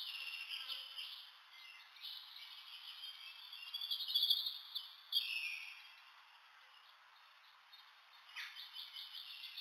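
Faint, high-pitched animal chirps with short trills, the clearest about four seconds in and again just after five seconds, and a weaker one near the end.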